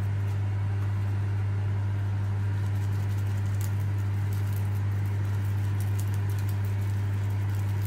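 A steady low hum, with a few faint, light patters as dry spice seasoning is shaken onto raw pork steaks in a plastic tray.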